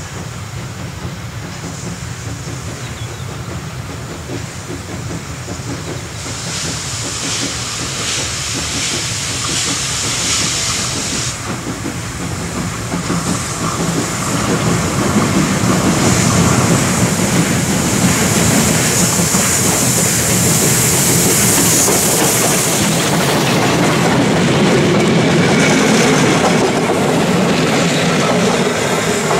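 Pt47 steam locomotive, a Polish 2-8-2 passenger engine, approaching with a passenger train and passing close by. It grows louder about halfway through as the locomotive and its carriages go past.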